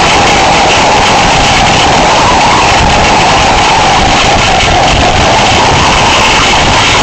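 Hurricane wind and crashing water making a loud, steady rushing noise, with a howl in it that slowly wavers in pitch.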